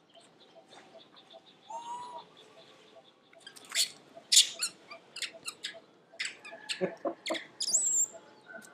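Baby macaques squealing and shrieking as they scuffle: a short squeal about two seconds in, then a run of sharp, very high shrieks from about three and a half seconds, and a high falling squeal near the end. A faint steady pulse of chirps, about four a second, runs behind.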